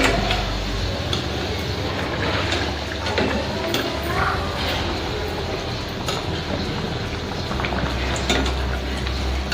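Gram-flour-coated masala vadas deep-frying in hot oil: a steady sizzle, with several sharp clinks of a metal spoon against the pan.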